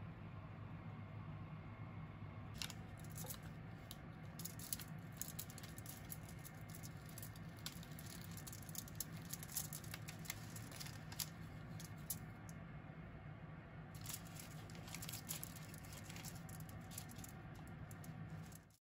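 A soft, freshly baked loaf of bread torn apart by hand, with light irregular crackling and rustling from the baking paper and foil under it. A low steady hum runs underneath.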